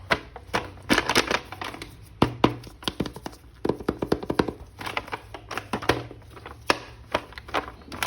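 Hands handling a plastic action figure and its packaging, making irregular sharp clicks and crinkling.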